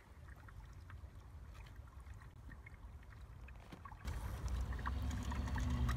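A faint low rumble, then about four seconds in a louder steady hum: the small electric motor of a radio-controlled Bruder Land Rover Defender toy running while the truck sits stuck in the water.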